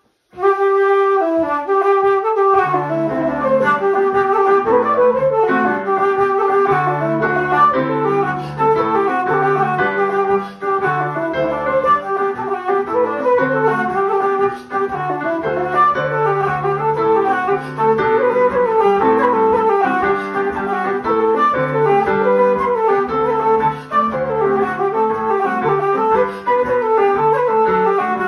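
A pair of Irish jigs played on a wooden flute with Roland digital piano accompaniment. The flute starts alone, and the piano's chords come in about two and a half seconds in.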